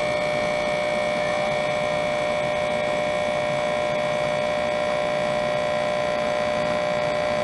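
Small electric air pump running in vacuum mode, a steady hum with higher steady tones over it, pulling the air out of a glass carboy to draw liquid in through tubing.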